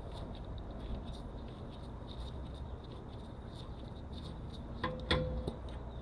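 Metal parts being handled during brake work: quiet rubbing and small ticks, then two sharp metallic clinks with a short ring about five seconds in.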